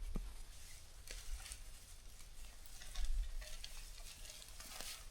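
Continuous crackling rustle of brush and damp leaf litter being pushed through while gathering deadwood, with a few small sharp snaps of twigs.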